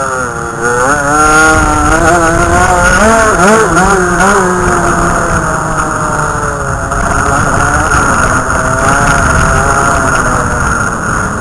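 Dirt bike engine being ridden hard, its pitch rising and falling again and again with throttle and gear changes in the first half, then steadier, with a slow drop in pitch near the end.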